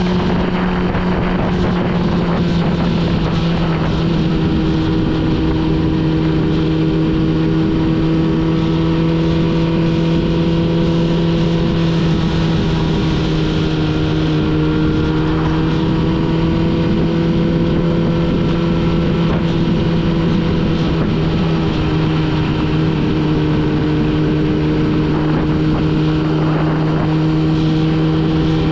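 Suzuki GSX-R600 inline-four motorcycle engine running at nearly steady revs while riding, its pitch drifting slightly down and back up, with wind rush over the microphone.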